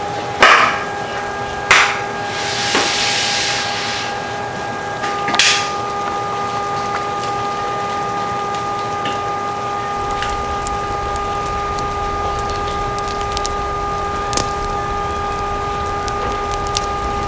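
Steady rain ambience with a sustained chord of held tones underneath that shifts about five seconds in. There are two sharp clicks near the start, a short hiss about two seconds in, and another brief burst a little after five seconds.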